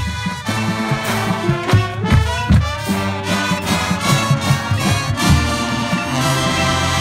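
Drum and bugle corps horn line and drum line playing together at full volume: sustained brass chords and moving lines over steady drum strikes.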